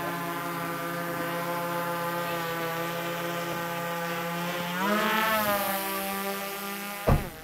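Quadcopter drone hovering just after take-off, its propellers giving a steady whine made of several tones. About five seconds in the whine rises in pitch and grows louder, then settles back. A single sharp knock comes near the end.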